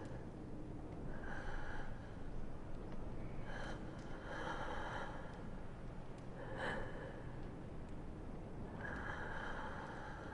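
A person's breathy gasps and sobs, coming in short bursts: one about a second in, a cluster around four to five seconds, one near seven seconds, and a longer one near the end.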